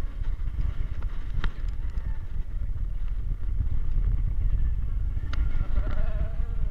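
Bobsled coaster sled running fast down its metal trough track: a steady heavy rumble from the wheels, with wind buffeting the microphone and scattered clicks and knocks as the sled rattles along.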